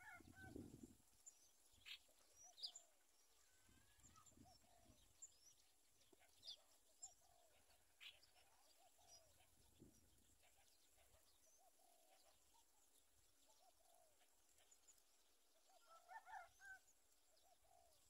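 Faint soft squeaks and chirps recurring through, from zebra dove chicks begging while the adult feeds them, with a louder cluster of calls near the end.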